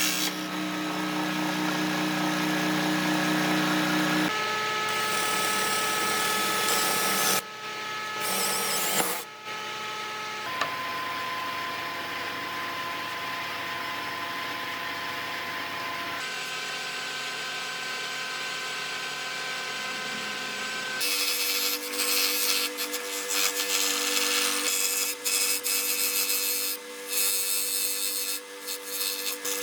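Electric power tools running on wood in a series of short clips, each a steady motor whine at a different pitch that changes abruptly at each cut, with rougher, uneven cutting or sanding noise near the end.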